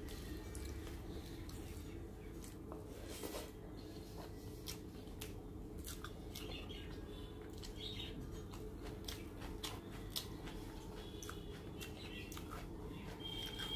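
Fingers mixing rice and fish curry on a plate: soft wet clicks and squishes, irregular throughout, over a steady low hum.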